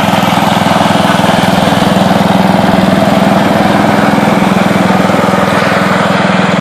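Husqvarna riding lawn mower's engine running steadily at an even speed as the mower is driven across the grass.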